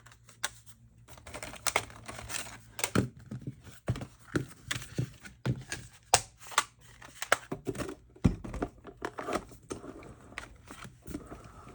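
Crafting paper crinkling and rustling with irregular sharp clicks, as paper and an intricate cutting die are handled and run through a die-cutting machine. A faint low hum runs under it for the first three seconds or so.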